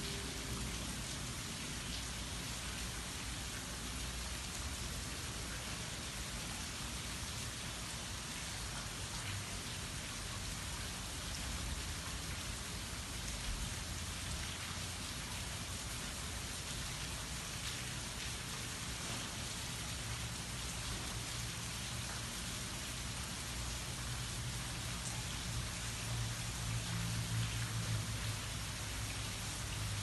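Steady rain falling on trees, grass and a lake, an even hiss of many drops, with a low rumble that grows louder near the end.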